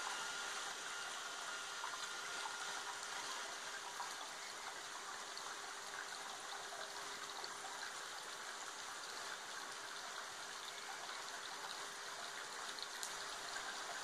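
Rain falling on a small garden pond while its waterfall trickles over rocks into it: a steady sound of running and splashing water.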